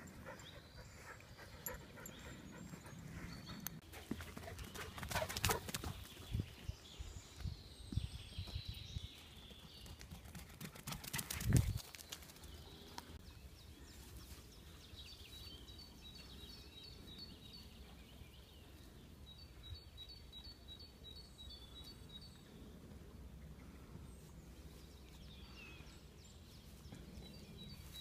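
A dog panting, with two louder bursts of rustling noise in the first half. A bird chirps in rapid series in the second half and again near the end.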